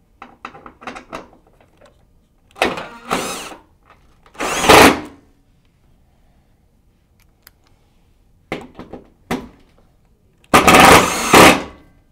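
A Makita cordless impact driver with a 5/8-inch socket drives #14 screws through a steel snow-guard bracket into a corrugated metal panel, running in several short bursts. The longest and loudest burst comes near the end, with short clicks in between.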